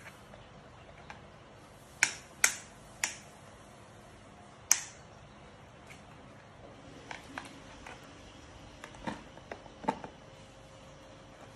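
Sharp clicks and taps of blender parts and tools being handled during disassembly: four loud clicks in the first five seconds, then a scatter of softer knocks.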